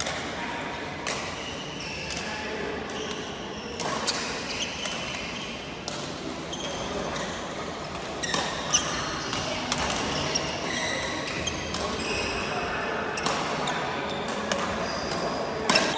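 Badminton rackets striking shuttlecocks during rallies on several courts, sharp hits at irregular intervals, over background voices.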